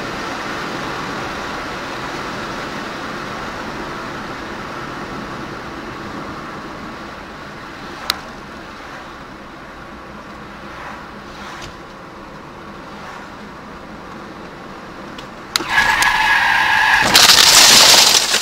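Steady road and engine noise inside a moving car; about 15 seconds in, tyres squeal for about a second and a half under hard braking, then a loud crash as a cow strikes the car's hood and windshield, cracking the glass.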